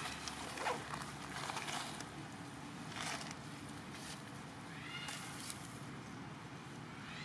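Dry leaves and grass crackling in short bursts as a long-tailed macaque forages on the ground. A bird's quick falling chirps come in about five seconds in and again at the end.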